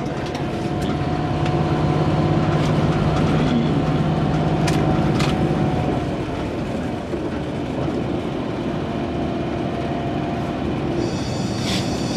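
Steady drone of a tour bus's engine and road noise inside the cabin. Music starts up near the end.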